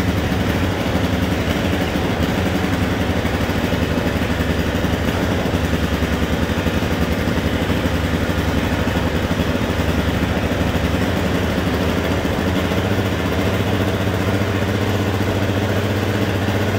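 Yamaha Apex snowmobile four-cylinder four-stroke engine idling steadily on its first start-up, running on a MicroSquirt aftermarket ECU with no exhaust system fitted yet.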